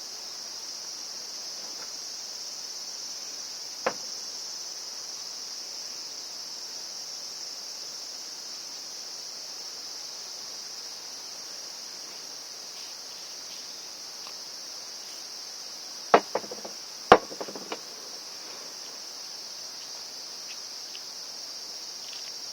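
Insects chirring steadily in a high, even band, with a few sharp knocks: one about four seconds in and a quick cluster of louder ones around the three-quarter mark.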